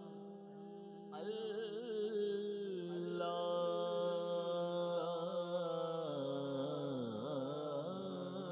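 Background devotional chanting: a wordless vocal line with long held notes and wavering glides over a steady low drone, growing louder about a second in.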